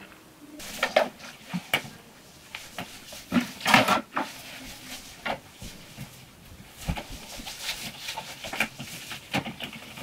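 Irregular soft knocks, bumps and rustles of things being picked up, moved about and set down in a room.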